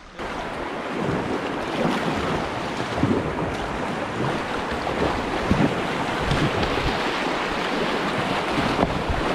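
Steady rush of a whitewater river running over rocks.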